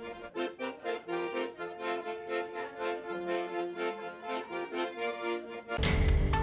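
Folk-style accordion tune playing sustained chords. Near the end a much louder theme tune cuts in abruptly.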